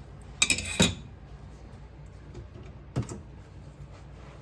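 Short metallic clinks and clatter of metal tools being handled and set down: a quick cluster about half a second in and a single clink near three seconds, over a low steady hum.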